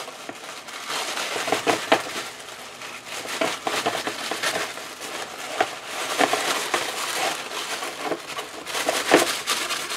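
Tissue paper crinkling and rustling as it is pulled out of a cardboard box, with irregular crackles throughout and a sharper crackle near the end.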